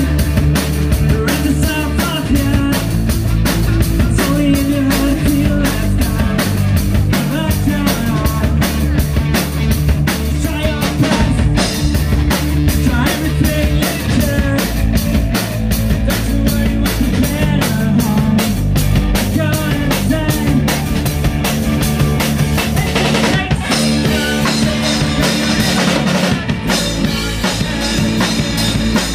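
Live rock band playing loud through a PA: a steady, driving drum-kit beat under electric guitars and bass.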